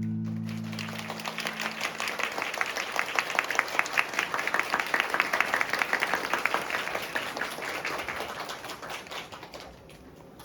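The last chord of the song rings out and fades in the first couple of seconds. Audience applause then swells, peaks mid-way and dies away near the end.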